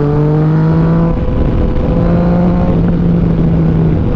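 Yamaha Tracer 900's 847 cc inline-three engine, fitted with an Akrapovic full exhaust system, pulling on the highway: its note climbs for about a second, then holds steady with a brief break partway through. Loud wind rush runs underneath.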